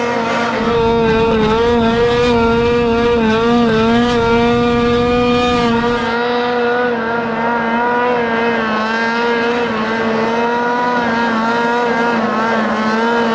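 Snowmobile engine held at high revs while skimming across open water, its pitch wavering slightly up and down. The rush of wind and water spray under it drops away about halfway through.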